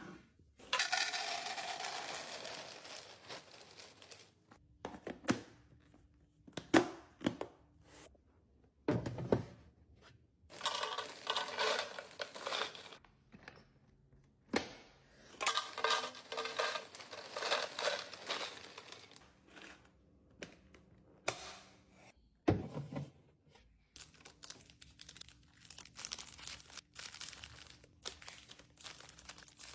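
Plastic packaging crinkling and tearing in stretches of a few seconds, between short knocks and clicks of items being handled and set down.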